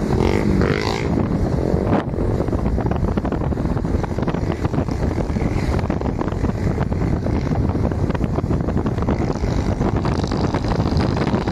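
Wind rushing and buffeting over the microphone of a moving motorcycle, with the motorcycle's engine running steadily underneath.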